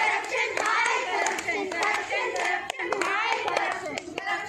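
A group of children's voices chanting together, with hand claps scattered through it.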